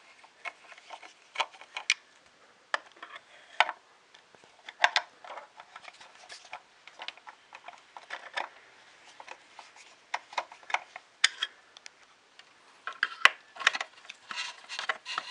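Screwdriver tightening small screws in a 3D printer's frame: irregular ticks and clicks of the tool and parts being handled, with a sharper click about 13 seconds in and a busier run of clicks near the end.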